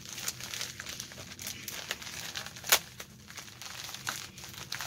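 White plastic mailer bag being crinkled and torn open by hand: irregular crackling, with one sharp, loud snap a little before the middle.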